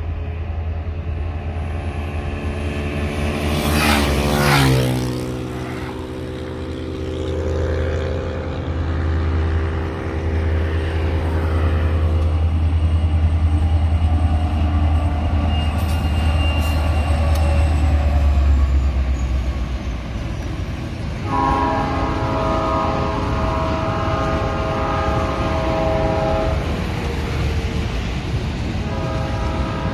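Diesel freight locomotive's air horn sounding a long blast about 21 seconds in, held for several seconds, and another starting near the end, over a steady low rumble. About four seconds in, a vehicle passes with a falling pitch.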